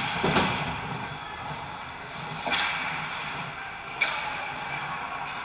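Hockey skate blades scraping and carving on the ice close to the net, with two swishing scrapes, one about half a second in and one about two and a half seconds in, and a short sharp click near four seconds, over the steady noise of the rink.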